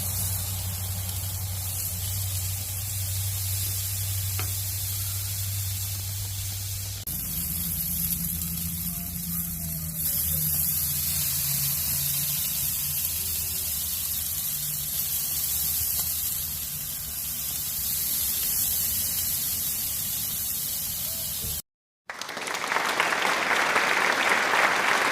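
Ribeye steaks sizzling in a hot pan: a steady hiss over a low hum, growing much louder and denser near the end.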